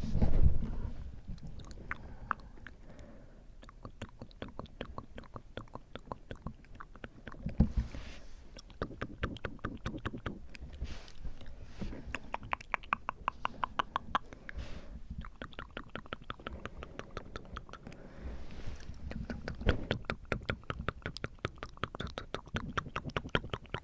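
Close-up, wet ASMR mouth sounds: rapid tongue and lip clicks in dense runs, with a few breaths blowing on the microphone, one about a second in and others near the middle and toward the end.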